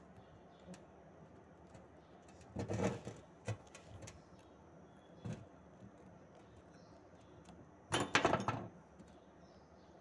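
Pliers and small metal parts of a limit switch clicking and rattling as the switch is fitted back together by hand: a short run of clicks about three seconds in, a few single clicks, and the loudest rattle near the end.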